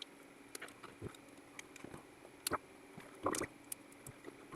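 Scattered light clicks and taps of small plastic parts being handled as a touch-screen panel's LCD module is worked loose from its plastic caddy, with a short cluster of louder clicks a little after three seconds in.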